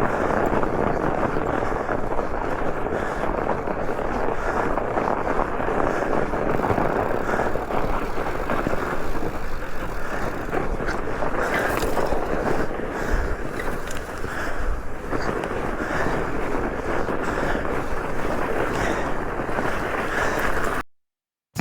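A fat bike being ridden over snow: steady wind rumble on the microphone mixed with tyre and bike noise.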